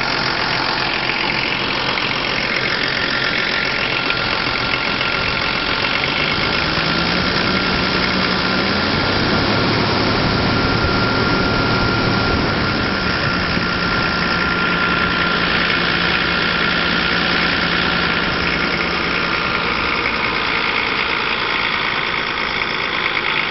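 A 1990 Volvo 740's 2.4-litre six-cylinder turbo diesel engine running, heard from the open engine bay, with a thin steady whine over it. The revs rise briefly about a third of the way in and then settle back to a steady idle.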